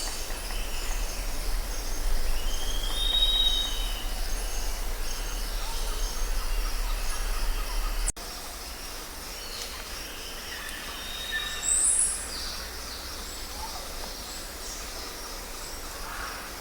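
Outdoor nature ambience: short bird calls over a steady background hiss. About eight seconds in the sound cuts abruptly to a quieter bed and a low rumble drops away.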